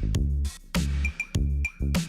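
Background electronic music with a drum-machine beat and a deep bass line.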